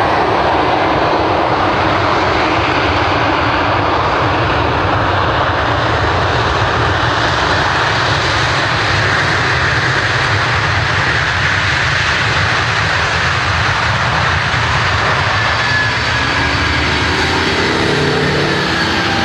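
Jet airliner engines of a McDonnell Douglas MD-11 running loud and steady, with a faint whine that slowly drops in pitch over the second half.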